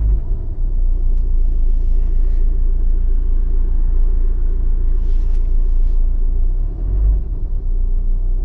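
Ford Focus II 1.8 TDCi four-cylinder diesel engine settling back from a rev at the start, then idling steadily with a low rumble.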